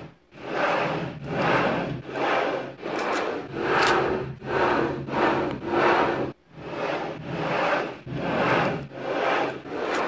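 A cube of neodymium magnet spheres being twisted back and forth by hand, the spheres rubbing and grinding against one another in swelling strokes about every 0.7 seconds. The strokes break off briefly about six seconds in.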